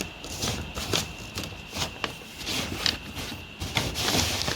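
Handling noises: irregular light scrapes, rubs and taps as steel patch pieces are shifted about on the panel to line them up. A faint steady high whine runs underneath.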